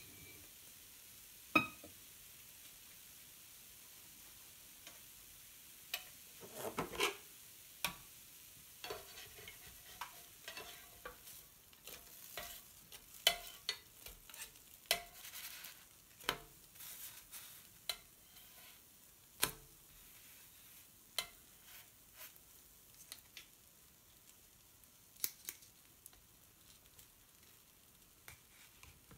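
Scattered sharp clicks, taps and short scrapes of kitchen utensils: a knife cutting a banana on a ceramic plate near the start, then a spatula and tongs working cooked pancake strips and a pancake off a griddle. A faint sizzle runs underneath.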